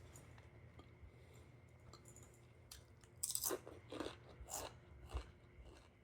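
Close-miked chewing of a crunchy snack: a few seconds of quiet, then about five crisp crunches in quick succession over two seconds about halfway in.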